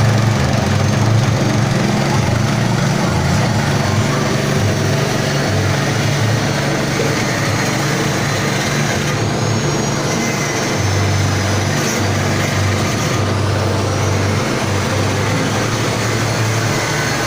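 Pellet press converted from a meat grinder running steadily under its motor, a continuous mechanical drone with a low hum that wavers slightly.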